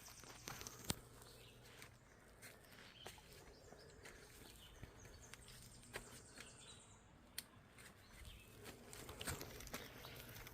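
Faint, scattered clicks and scuffs of a person climbing over rock in flip-flops, above a quiet outdoor background.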